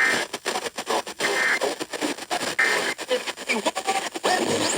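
Three short bursts of Emergency Alert System end-of-message data tones, each a fraction of a second long and about 1.3 seconds apart, signalling the end of the tornado warning. Choppy broadcast radio audio runs underneath.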